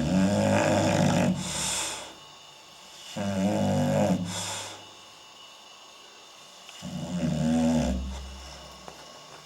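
English Bulldog snoring loudly in its sleep: three long snores about three and a half seconds apart, each a low rumbling rattle that ends in a brief hiss of air. Heavy snoring like this is typical of the breed's short, flat-faced airway.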